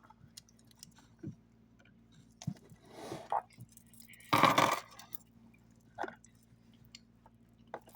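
A person chewing snacks and handling them, with scattered light clicks and clinks and one short, loud noise burst about four and a half seconds in.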